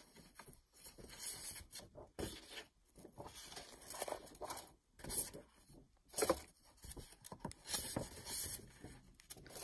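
Sheets of coloured craft paper rustling and sliding against each other as they are leafed through, in several separate swishes.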